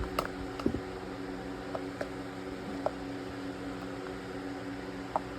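A steady mechanical hum with a few light clicks and taps from handling a new cartridge oil filter element as it is pushed into its plastic housing.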